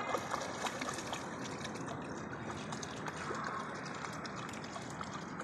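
Small, irregular splashes of a schipperke's legs wading through shallow seawater, over a steady hiss.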